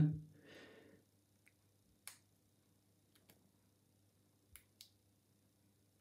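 A few faint, sharp clicks of a homemade hacksaw-blade pick working the pin tumblers of a Squire No.39 laminated padlock under light tension from a brass wire tension tool: one about two seconds in, another a second later, then two close together near the end.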